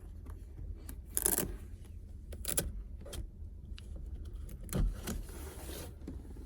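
Rustling and handling noises: a few short scuffs and clicks, a low thump about two-thirds of the way in, then a longer rustle, over a steady low hum.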